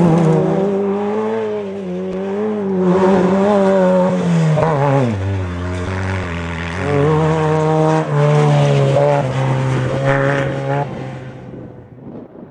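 Unlimited-class desert race buggy engine running hard, its pitch rising and falling with the throttle. The pitch drops sharply about five seconds in and climbs back a couple of seconds later, and the engine fades away near the end.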